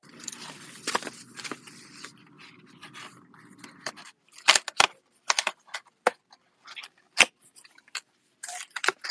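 A small cardboard product box being opened by hand: scraping, crinkling and sharp clicks of the packaging flap and insert, irregular and loudest in the second half. For about the first four seconds a steady low hum with hiss lies underneath.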